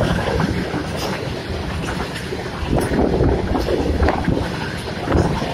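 Goods train's wagons running past close by: a steady rumble with the irregular clatter and knocks of steel wheels on the rails, and wind buffeting the microphone.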